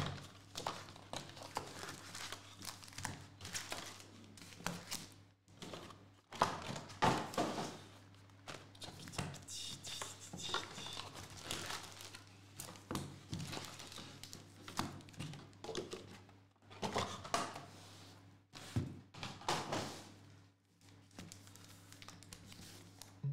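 Foil trading-card packs crinkling and rustling as they are handled and stacked on a table, with occasional soft knocks as they are set down.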